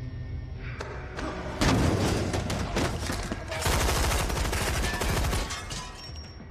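Submachine-gun fire in two long, rapid bursts, the first about a second and a half in and the second just after it. Film score underneath.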